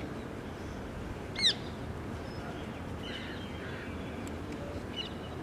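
A short, high chirp-like animal call about a second and a half in, with a few fainter ones later, over a steady low outdoor background.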